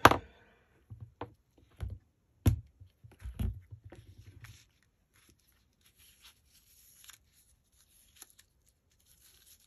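A handful of sharp knocks and taps on a craft table, the first the loudest, as craft tools and lace are handled. Then faint rustling of lace and paper being pressed down by hand.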